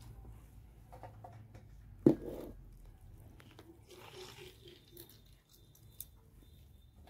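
A hand squeezing and turning wet chopped mushrooms in a steel bowl to press out their soaking water: soft squishing and rustling, with one sharp clack about two seconds in and a few small clicks later.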